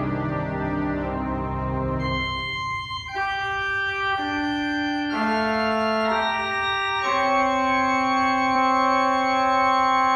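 Organ playing a slow succession of sustained chords, the chord changing about once a second, then one chord held from about seven seconds in. Deep bass notes sound under the chords in the first two seconds.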